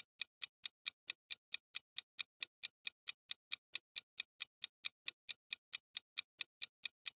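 Clock-ticking sound effect for a quiz countdown timer: fast, even ticks, about four to five a second.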